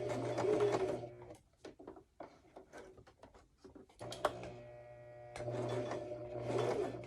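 Electric home sewing machine stitching slowly in two runs: about a second at the start, then again from about four seconds in to near the end, a steady motor hum with the stitching noise over it. A few light clicks in the pause between.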